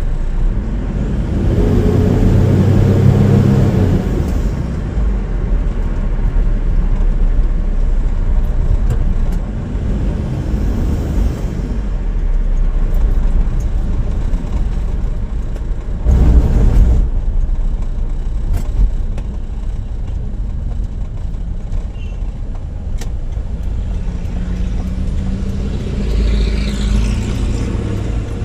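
Vehicle driving on a road test: steady engine and road rumble, with the engine note swelling for a few seconds near the start and again near the end.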